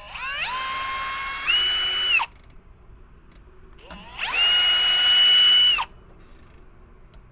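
Cordless drill/driver backing out the screws of a door's latch plate: two bursts of motor whine, each about two seconds long, rising in pitch as the motor spins up, the first stepping up to a higher speed partway through.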